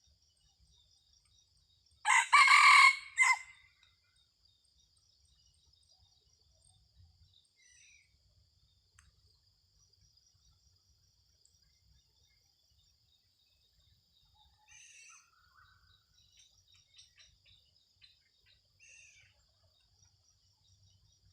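A red junglefowl rooster crows once, short and clipped, about two seconds in, over a steady high insect drone. A few faint bird chirps follow later.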